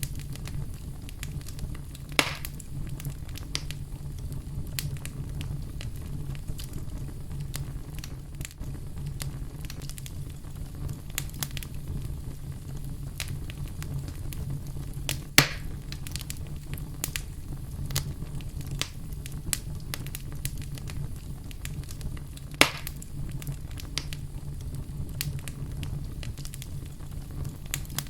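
Wood fire burning in a fireplace: a steady low rumble of flames under constant small crackles, with three louder pops spread through.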